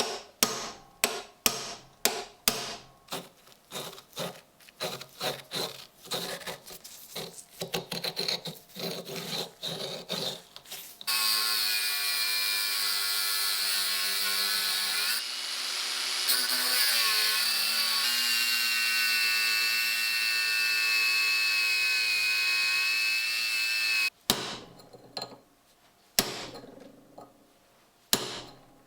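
Repeated sharp knocks, about two a second, on a corroded metal time fuse. Then an electric power tool runs steadily with a whine for about thirteen seconds, its pitch dipping briefly as it bites. A few more knocks follow near the end.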